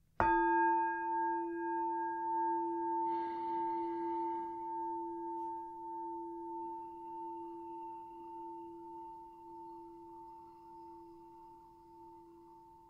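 Meditation bowl bell struck once, ringing with a low tone and a higher tone that waver gently as they fade slowly over many seconds.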